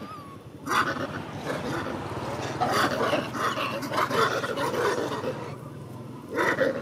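Macaques calling: a dense run of overlapping calls from about a second in, then two short loud calls near the end.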